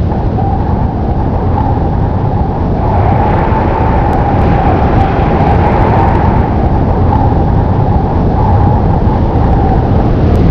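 Storm wind blowing hard: a loud, steady rush with a deep rumble underneath, growing a little louder about three seconds in.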